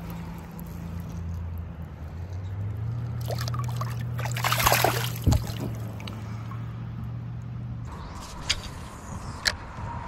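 Shallow river water splashing and sloshing as a smallmouth bass is let go from the hand, loudest about halfway through, followed by a knock. Two sharp clicks come near the end.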